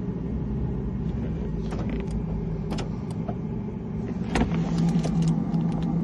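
Door locks of a Mazda CX-9 clicking as the unlock button on a new smart key is pressed twice during key programming, a sign that the car has accepted the key, over a steady low hum from the car. There are several short sharp clicks, the strongest about four seconds in.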